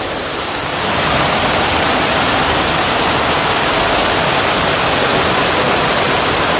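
Heavy monsoon rain pouring down in a steady hiss, a little louder from about a second in.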